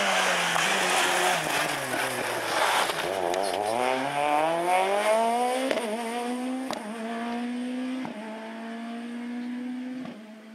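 Ford Fiesta rally car engine at full race pitch. The note drops as the car slows for a junction, then climbs as it accelerates away, with quick upshifts about six, seven and eight seconds in. It fades as the car pulls into the distance.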